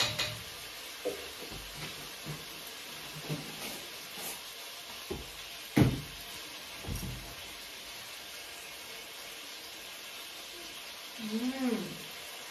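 Shrimp frying in a pot on a gas stove with a steady sizzle, under scattered knocks of pots and utensils, the loudest about six seconds in. A brief voice sounds near the end.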